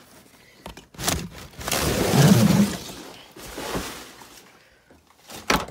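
Crumpled packing paper and cardboard rustling and crackling as a vacuum cleaner is pulled out of its shipping box, loudest about two seconds in, with a sharp knock of handling near the end.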